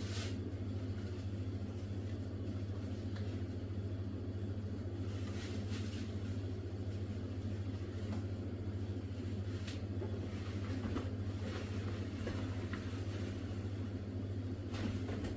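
Steady low hum that holds constant throughout, with a few faint clicks and rustles over it.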